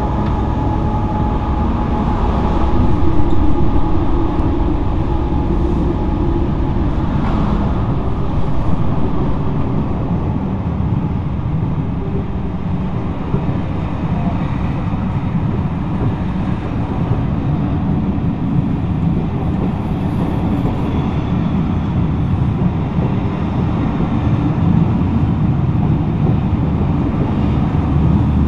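Pullman passenger carriages rolling slowly past at close range: a steady rumble of wheels on rail, with an occasional faint click.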